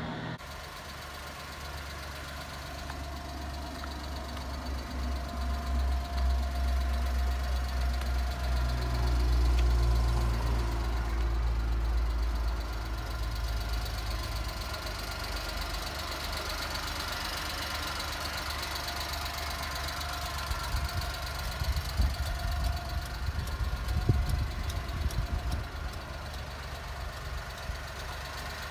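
The small 657 cc three-cylinder F6A engine of a 1991 Suzuki Carry kei truck idling steadily: a low rumble with a faint whine above it, which swells for several seconds in the first half. A few sharp ticks stand out in the last third.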